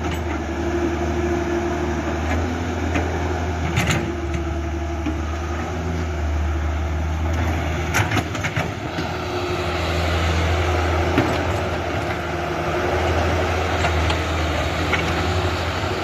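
Mini excavator's engine running steadily under work, with a few sharp knocks about four and eight seconds in.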